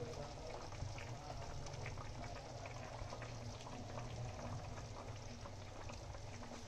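Tomato-onion gravy with peas simmering and bubbling in a pan, over a low steady hum, with a few faint small clicks as koftas go in.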